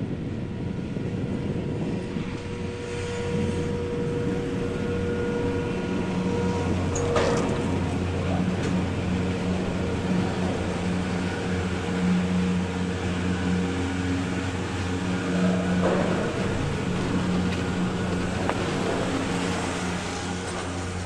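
Machinery of the Peruvian Express, a detachable chairlift, running with a steady hum of several low tones. Two sharp clunks come about seven and about sixteen seconds in.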